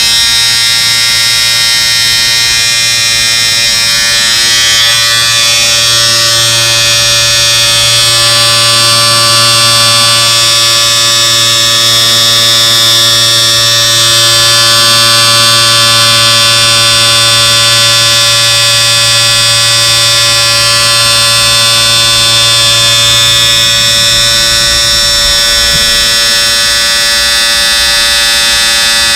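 Electric shaver running continuously, a steady loud buzz with a high-pitched whine on top.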